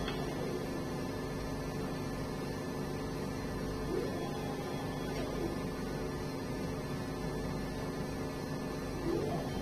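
Moving-head LED wash light running with a steady electrical hum. Its motors give faint whines that glide up and down in pitch as the head moves: rising about four seconds in, falling a second later, and rising again near the end.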